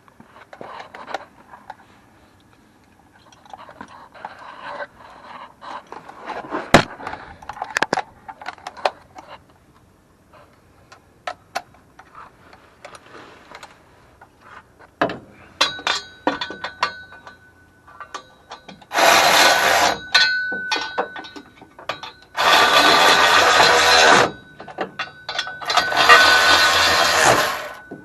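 Metal hand tools clinking and clanking during turbo kit installation, then a power tool run in three bursts of about two seconds each in the second half, the loudest sounds here.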